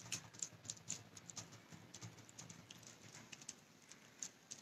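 Faint, irregular crinkles and ticks of an aluminium-foil packet and tape being handled by hand, a few a second, as an iron nail is taped onto the packet.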